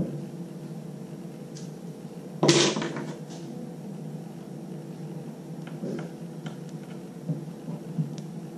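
Parts of a vacuum filter's touch bar assembly being handled and fitted onto the cartridge filter. There is one loud clatter about two and a half seconds in, then a few light clicks and taps, over a steady low hum.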